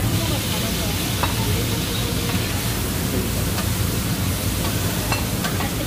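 Food sizzling on a teppanyaki griddle, a steady hiss over a low background hum, with a few light clicks.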